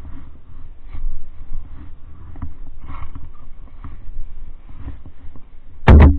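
Irregular crunching and thumping of someone trudging and working in deep snow beside a stuck snowmobile, with one very loud, sharp knock near the end.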